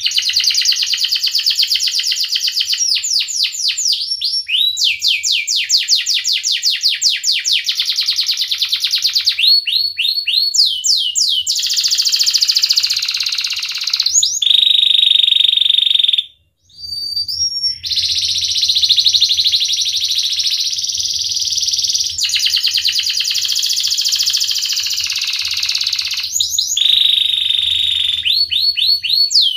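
Domestic canary singing a long, nearly unbroken song of rapid rolling trills in the 'ngerek' style, fast runs of repeated notes alternating with held, steady whistled tones. The song cuts out abruptly for about half a second near the middle, then carries on.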